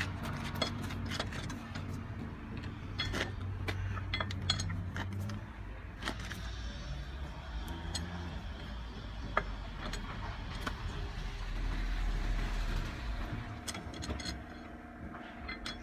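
Lug nuts being undone from a car wheel with a lug wrench: scattered metallic clicks and clinks. A steady low engine hum runs underneath.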